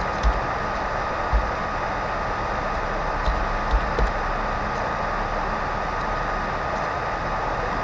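Steady microphone hiss with a thin, constant tone. About five soft low thumps in the first four seconds are computer keyboard keystrokes, as letters are typed one at a time.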